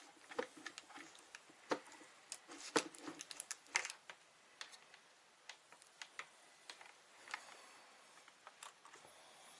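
Scattered light clicks and knocks from small objects being handled, busiest in the first four seconds and then only occasional.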